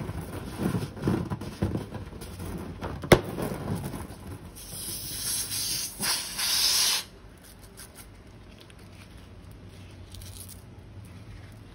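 Slime-making materials being handled and squeezed: rustling and squishing, a sharp click about three seconds in, and a loud hissing rush from about four and a half to seven seconds. After that it drops to faint handling.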